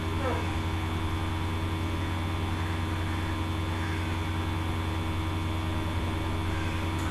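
Steady electrical hum with hiss underneath, unchanging and with no distinct events.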